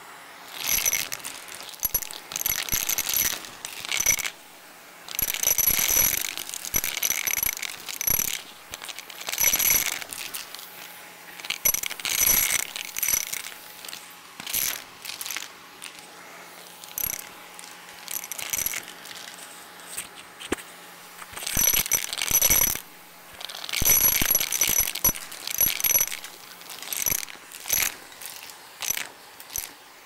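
Coins rattling and clinking against a vacuum cleaner's brush nozzle and hose as they are sucked up, in bursts of metallic clatter a second or two long, with a quieter stretch of scattered clicks in the middle, over a faint steady hum.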